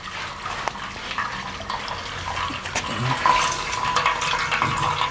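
Wort trickling and splashing from a cloth filter bag into an aluminium brew pot as the grain is sparged (the run-off stage of brewing), getting a little louder about three seconds in.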